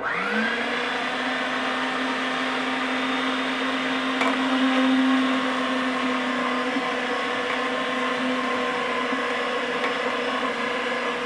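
Electric meat grinder switching on, its motor spinning up with a short rising whine, then running with a steady hum as it minces tomatoes, apples, chili peppers and garlic.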